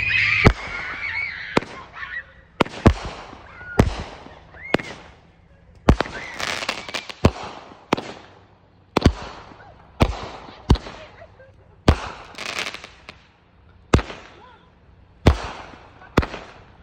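A multi-shot aerial fireworks cake firing: sharp bangs about once a second, each followed by a crackling, fizzing tail, with a short whistle or two among them.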